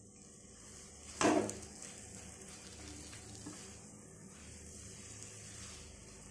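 Silicone spatula stirring and pressing a thick khir (milk-solids) dough in a nonstick pan over heat, with a faint steady sizzle; one louder scrape about a second in.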